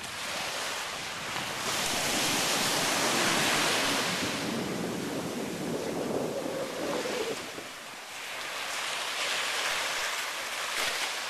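Small sea waves breaking and washing up the sand in two swells of surf, the first a couple of seconds in and the second near the end.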